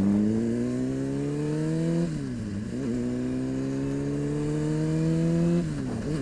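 Honda CBR600RR's inline-four engine accelerating through the gears, its pitch climbing steadily and dropping sharply at two upshifts, about two seconds in and again near the end.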